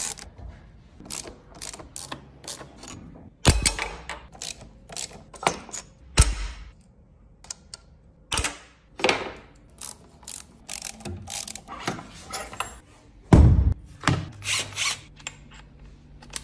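Hand tools at work on a motorcycle's front axle: a socket ratchet clicking and metal parts knocking at irregular intervals, with a few louder thunks.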